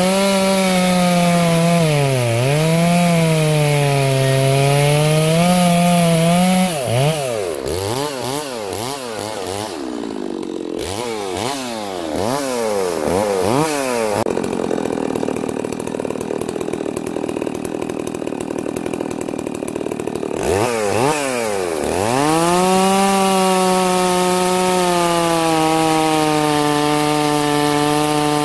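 A new, not yet broken-in Farmertec Holzfforma G660 two-stroke chainsaw with a 36-inch bar cutting a dry hardwood log. The engine is under load and its pitch wavers as it bogs and recovers. About seven seconds in it is revved up and down quickly several times, then evens out, revs up again about 21 seconds in, and settles into a steady pull through the cut.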